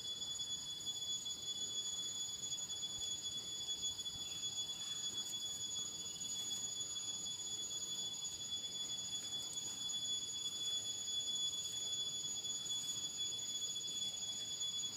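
Steady high-pitched drone of insects, cicadas, in the forest, a shimmering whine with two thin unbroken tones, running without a break.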